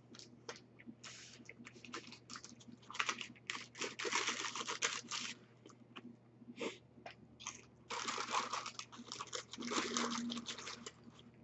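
Paper fry bag crinkling and rustling in several bursts as a hand rummages in it for fries, the longest burst lasting about two seconds.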